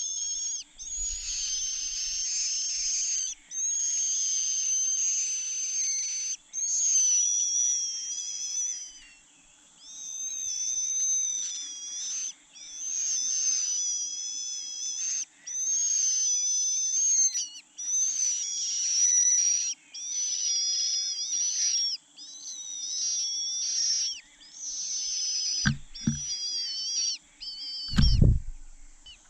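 Cuckoo chick begging for food: high-pitched, wavering calls in near-continuous bouts of one to three seconds with short breaks. A couple of dull thumps near the end.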